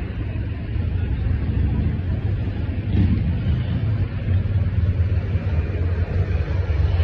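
Steady low rumble of motor-vehicle traffic.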